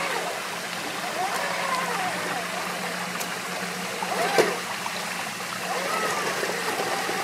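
Stream water running steadily over rocks, with the electric motor and gears of a 1/8-scale RC crawler whining up and down in pitch. A sharp knock comes about four and a half seconds in.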